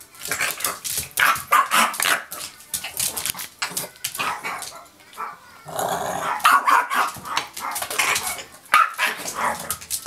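Small long-haired dog barking repeatedly in short, sharp barks.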